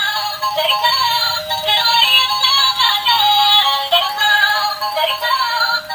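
Battery-powered Doraemon tricycle toy playing its built-in electronic tune, a synthetic-sounding melody that is thin with no bass.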